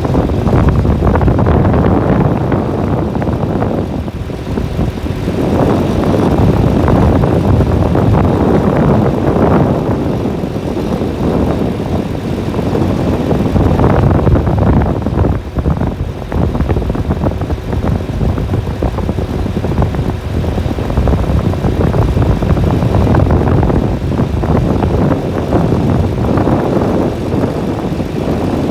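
Heavy farm machinery running during corn harvest: a loud, steady engine-and-machine noise that swells and eases every few seconds.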